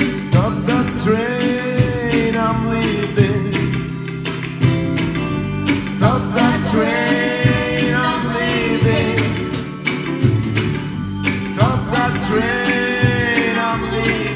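A live band plays a reggae song: acoustic and electric guitars, bass, keyboard, and a cajón keeping a steady beat. A female singer sings three long wordless phrases over it, about a second in, near the middle and near the end.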